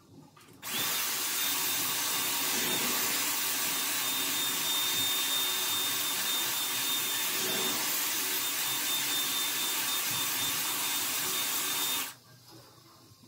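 Hot-air hair styling wand running: a steady rush of blown air with a thin high whine. It switches on about a second in and cuts off about a second before the end.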